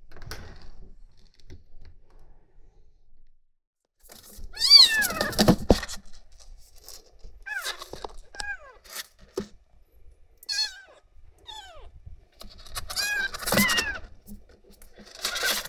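A roughly two-week-old kitten mewing repeatedly in thin, high cries that bend in pitch, calling for its milk feed. The first cry, about four and a half seconds in, is the longest and loudest, followed by a run of short mews and more loud ones near the end.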